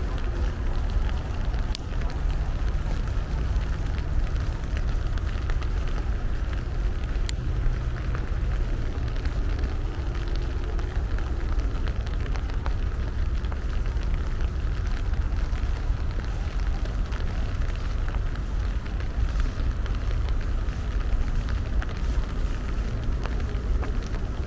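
Steady rain, with scattered sharp drops ticking close to the microphone, over a constant low rumble.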